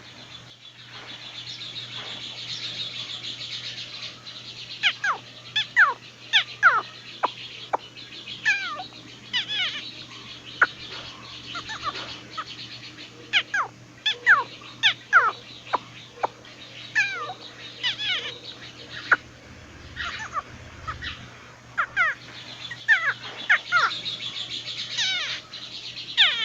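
A gathering of birds calling: many sharp downward-sliding whistled calls, one after another, over a steady high chirring chorus that swells at the start and again near the end.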